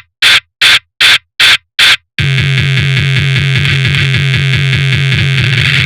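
Electronic tekno music: a run of sharp noise bursts, about three a second, cut off cleanly between hits. About two seconds in they give way to a loud, distorted buzzing synth line with a fast pulsing beat.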